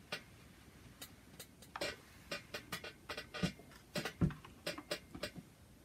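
Steam iron and cotton fabric being handled on a pressing surface while pleats are pressed: a string of irregular light taps and clicks, with two duller knocks about three and a half and four seconds in.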